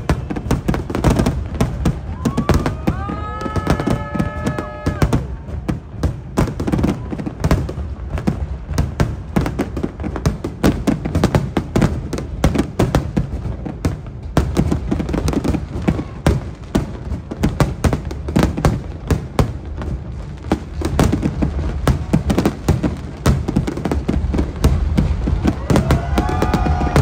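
Fireworks display: aerial shells bursting in a dense, continuous barrage of bangs and crackles over deep low thuds. A long held voice rises over it twice, about three seconds in and again near the end.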